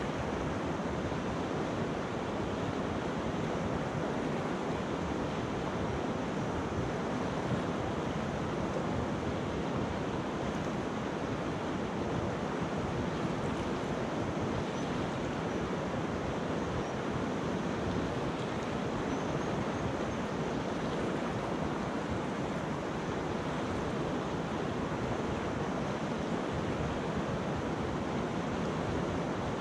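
River water rushing steadily over a pebble and rock bed, an even, unbroken rush of flowing water.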